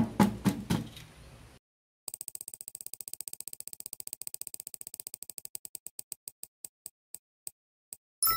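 Prize-wheel spinning sound effect: fast even ticks, about eight a second, that slow and spread out until the wheel stops, then a bright bell-like ding. A brief rattle of clicks comes before the wheel starts.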